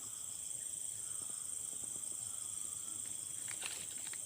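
A steady, high-pitched insect chorus from the surrounding vegetation, with a few faint clicks about three and a half seconds in.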